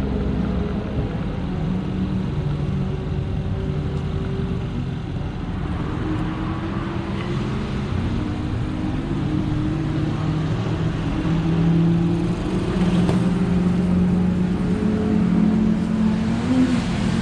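Car engines running on a race track, their pitch slowly rising and falling as they rev through the turns, with several engines heard at once.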